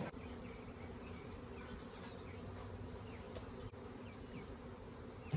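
Honeybee colony buzzing: a steady, even hum of many bees flying and fanning around the hive.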